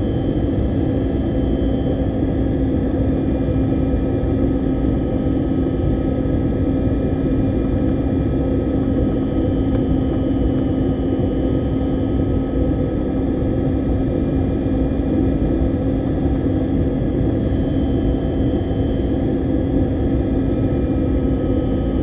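Steady drone of an airliner's engines and rushing air heard from inside the passenger cabin, with a constant low hum running through it.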